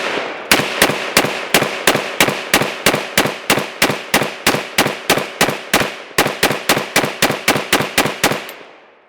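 Rapid semi-automatic fire from an AK-pattern rifle chambered in 5.56, about three shots a second for roughly two dozen shots, each with a short echo. This is a magazine dump, and the firing stops near the end when the magazine runs dry.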